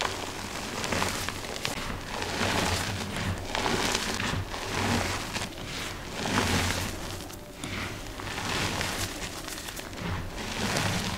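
Hands squeezing and crumbling handfuls of dyed gym chalk powder: soft crunching and dusty crackling that swells with each squeeze, repeated every second or two.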